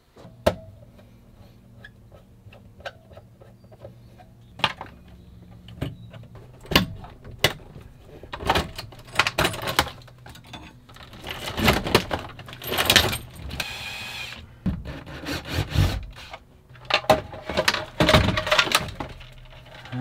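Hands handling tools, wiring and a metal electrical box, with scattered clinks, knocks and rustling scrapes, while an old RV transfer switch is disconnected and lifted out. A faint low hum runs underneath until near the end.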